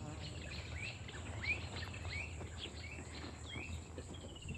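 Faint bush ambience: birds giving short rising chirps, several a second, over a steady high insect whine.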